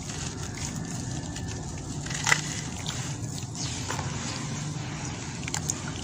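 Pure sand-cement chunks crumbling and being squeezed in wet hands, gritty crunching mixed with water sloshing as the pieces break up in a basin of water. A sharp snap about two seconds in, and a smaller one near the end.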